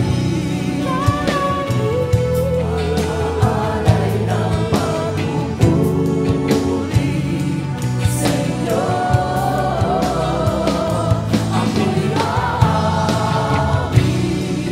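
Christian worship song: a singer holding long notes with vibrato over a band with steady bass notes and regular drum hits.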